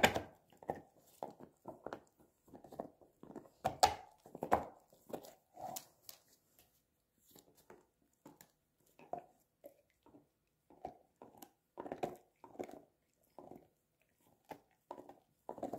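A large black dog gnawing a hard chicken-flavoured chew bone: irregular clicking and scraping of teeth on the bone, with a sharper, louder click about four seconds in and short pauses between bouts of chewing.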